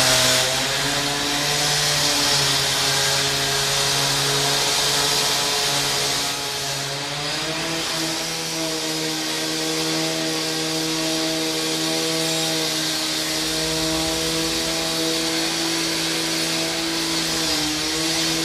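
Angle grinder running continuously with a steady motor whine and a hissing edge. The hiss fades about six and a half seconds in, and the whine then rises a step in pitch and holds there.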